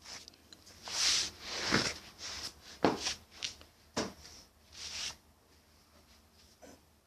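Rustling and handling noises: several irregular swishes with a few sharp clicks, dying away after about five seconds.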